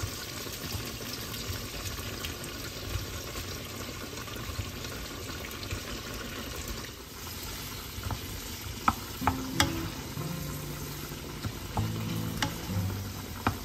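Shrimp, bacon and garlic sizzling in oil in a nonstick frying pan as cherry tomatoes are tipped in and stirred with a wooden spoon, a steady frying hiss. A few sharp clicks of the spoon against the pan come in the second half.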